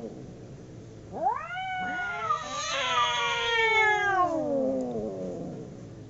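Two cats caterwauling in a fight standoff: after a short lull, a long, drawn-out yowl starts about a second in, with a second voice overlapping it, rises and then slides slowly down in pitch, dying away near the end.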